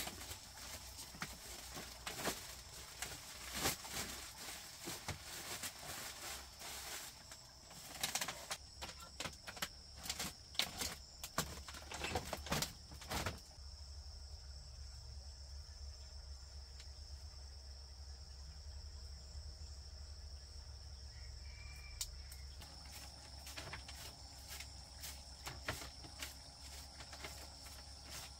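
A steady high-pitched chorus of crickets runs throughout. For about the first half it sits under crinkling, rustling and knocks from a woven plastic sack being handled; after that mostly the insects remain, with scattered light clicks near the end.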